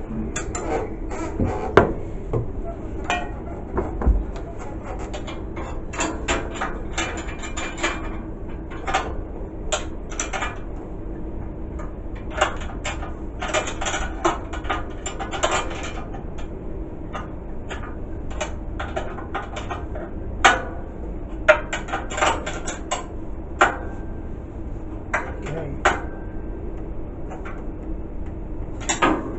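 Hand tools clinking and clicking on metal as a socket wrench works the electric motor's mounting bolts, in irregular clusters of sharp clicks and knocks over a steady hum.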